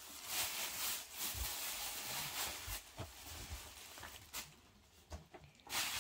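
Thin plastic carrier bag rustling as a boxed chocolate is pulled out of it, with a few soft knocks from the cardboard box being handled, and a louder rustle near the end as the bag is pushed aside.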